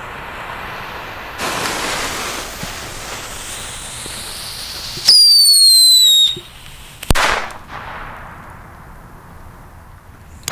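Whistling firecracker going off: a hiss, then a loud whistle that falls slightly in pitch for about a second, then one sharp bang.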